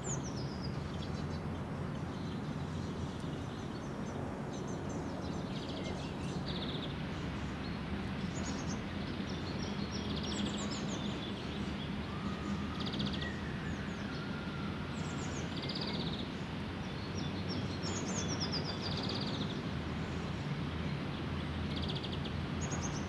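Outdoor ambience: small birds chirping and twittering in short high calls every second or two over a steady low background noise.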